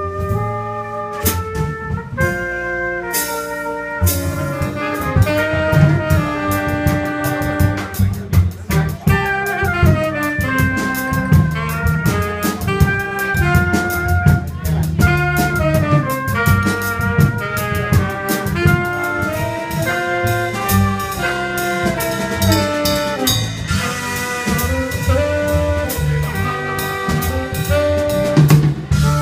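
Live jazz combo: a trumpet plays a running melodic line over drum kit and cymbals, with upright bass underneath.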